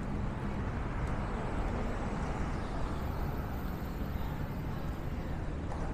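Steady city street traffic, with motor vehicles running past. A faint high whine is heard through the middle.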